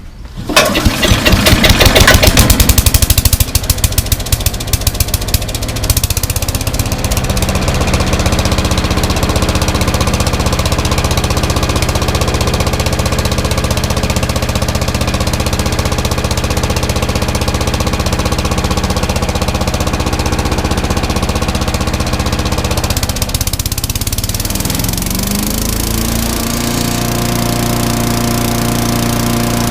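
Briggs & Stratton single-cylinder engine on a Troy-Bilt chipper shredder starting on the pull of its freshly repaired recoil starter and running steadily. Near the end the engine note dips and then rises to a higher, steady speed.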